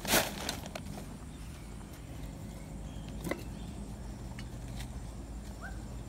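A brief rustle of plastic sheeting at the start as someone moves past it, then light handling of paper seed packets with a sharp click about three seconds in, over a steady low hum.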